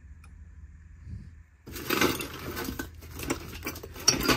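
Old dishes, glassware and crumbly debris clattering and rustling as a hand rummages through a box of junk: a quiet start, then from about a second and a half in a dense run of clicks, knocks and scraping.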